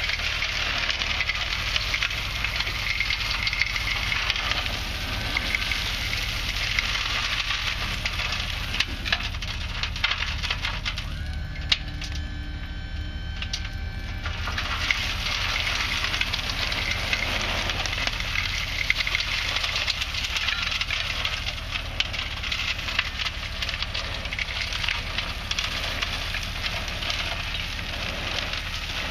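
2A modified crushed limestone pouring out of the raised bed of a 2007 Chevy 3500HD dump truck through the open tailgate, a dense clattering stream of stone over the low rumble of its 6.0 gas engine. About eleven seconds in the flow stops for a few seconds as the sticky 2A stone jams in the bed, then starts again.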